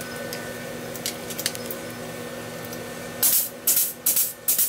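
Grease gun pumping grease through a bearing greaser tool into a Polaris RZR XP Turbo's rear wheel bearing. About three seconds in come four short spitting hisses, roughly 0.4 s apart. Before them there is only a steady hum with a few faint clicks.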